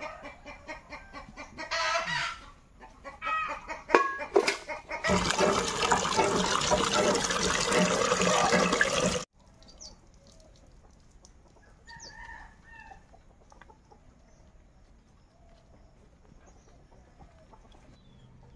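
Chickens clucking, with a rooster crowing, in the first few seconds. Then a loud, steady rushing noise runs for about four seconds and cuts off suddenly. After that it is quiet apart from faint bird chirps.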